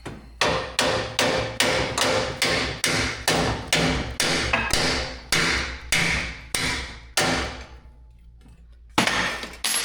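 A hammer striking a stuck steel part on the kart's rear suspension: a fast run of about eighteen ringing blows, roughly two to three a second, then a pause and two more blows near the end.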